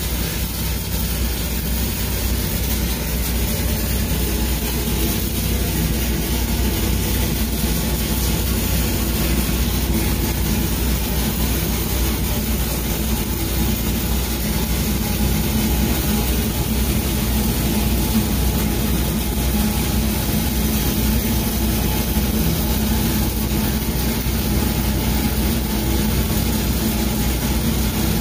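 Stick-welding arc from a 6010 electrode running a downhill root pass on steel pipe, a steady arc noise that does not break. A steady engine drone runs underneath.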